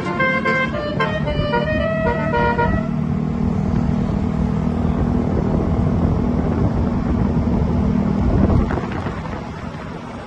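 Bus's basuri telolet musical air horn playing a quick tune of short notes, stopping about three seconds in. Then the bus engine runs steadily, fading near the end.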